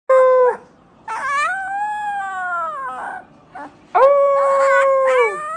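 Husky puppy howling: a short call, then a long howl that rises and falls in pitch, then after a pause a long, steady howl that drops away at the end.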